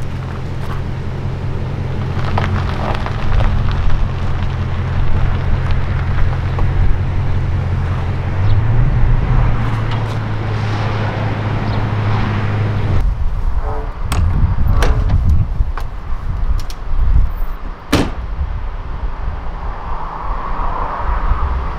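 Toyota Tundra pickup's engine idling with a steady low hum, which cuts off suddenly about two-thirds of the way through. A few scattered clicks and knocks follow.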